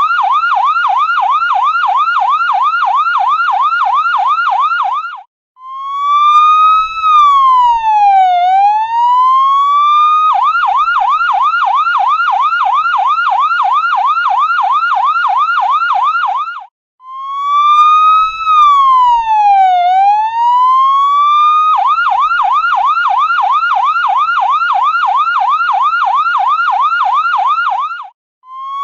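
Electronic ambulance siren alternating between a fast yelp of about three rising sweeps a second and a slower swoop that climbs, falls and climbs back over about three seconds. The siren breaks off briefly before each slow swoop, at about five and seventeen seconds in.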